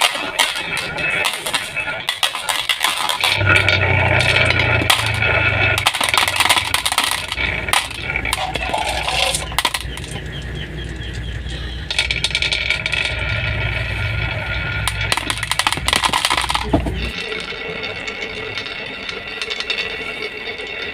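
Marbles rolling and clacking down a plastic marble-run track, with many quick sharp clicks and a steady low rumble from about three seconds in until near the end.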